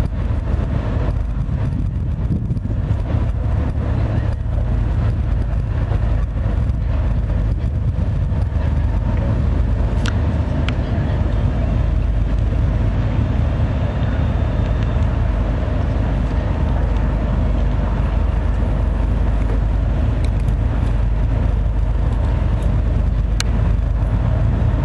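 Steady low rumble of a river cruise ship's diesel engine, with a couple of faint clicks.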